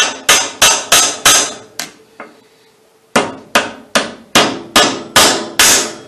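Ball-peen hammer striking rivets in a Flexco Alligator Rivet belt-splicer tool, each blow a sharp metallic tap, about two to three a second. The rivets are being started through the belt but not yet driven all the way home. Two runs of blows, with a short pause about two seconds in.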